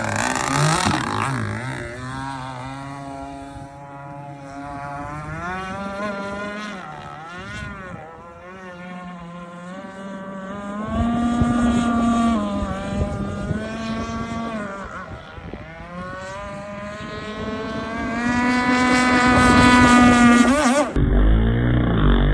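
26cc two-stroke gas engine of an RC mono hull racing boat running on the water, its pitch rising and falling with the throttle and growing louder twice as the boat comes near. The sound changes abruptly about a second before the end.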